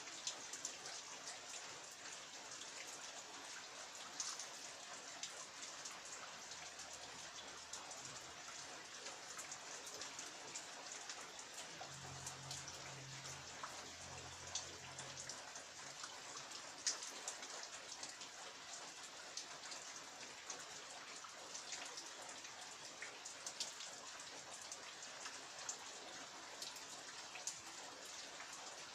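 Heavy rain falling steadily, with many individual drops striking sharply close by. A faint low hum sits under it for several seconds in the middle.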